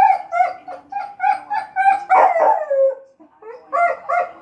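Dog yipping in quick, high-pitched whiny barks, about three a second, with one longer whine falling in pitch about two seconds in and a few more yips after a short pause. These are frustrated demand barks at a ball stuck under the couch.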